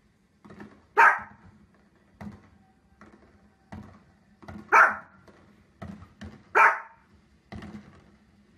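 Small dog barking at fireworks on the TV: three loud, sharp barks about one, five and six and a half seconds in, with fainter short sounds between them.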